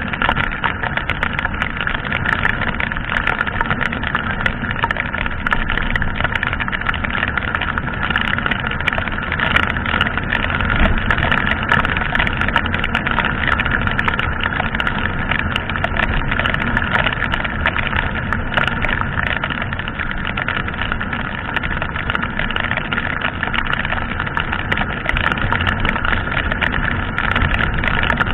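Yamaha sport motorcycle cruising steadily at about 70 km/h in heavy rain: the engine runs evenly under a constant rush of wind and rain on the camera's microphone.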